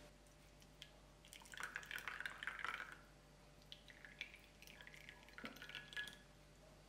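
Thick vanilla sauce poured in a thin stream onto a slice of apple strudel, faintly dripping and splashing into the sauce pooling in a ceramic bowl, in two spells.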